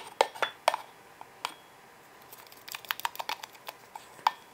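A spatula scraping and tapping against a stainless steel stand-mixer bowl as whipped cream is scraped out into a glass container: a run of light clicks and taps, a few near the start and a denser cluster past halfway.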